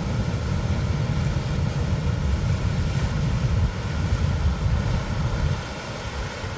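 Ocean waves: a steady low rumble of surf, easing slightly near the end.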